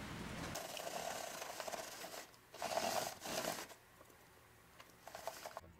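Faint scratchy scraping and rustling of a hamster scurrying over cardboard, loudest a little under three seconds in, with a few small clicks near the end.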